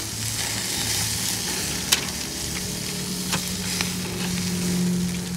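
Atlantic mackerel fillets sizzling on the wire grate of a butane tabletop grill, with a sharp metal clink about two seconds in and a few lighter clicks as a metal spatula is worked under the fish to flip it. A low steady hum runs underneath.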